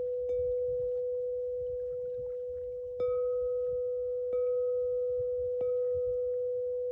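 Singing bowl struck four times, its steady ringing tone renewed with each strike and slowly dying away in between. A faint low rumble runs underneath.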